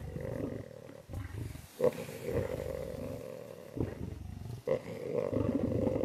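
Lions growling at a kill in long rumbling stretches, broken by short pauses and a few brief sharper outbursts.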